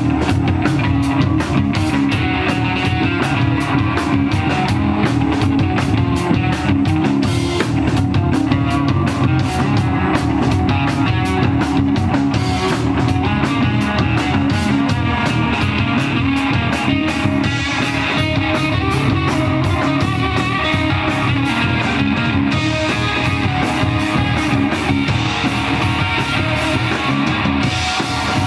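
Live instrumental rock from electric guitar, electric bass and drum kit, playing at a steady, loud level with a driving beat of close-set drum and cymbal hits.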